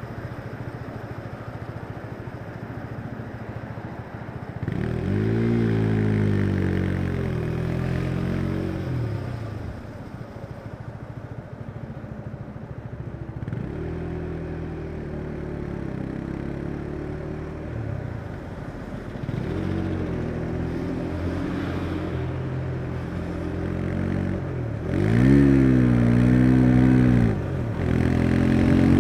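Husqvarna Svartpilen 401's single-cylinder engine idles for the first few seconds, then pulls away with the revs climbing and dropping through gear changes. It eases off and accelerates again several times, with the hardest rev-up near the end.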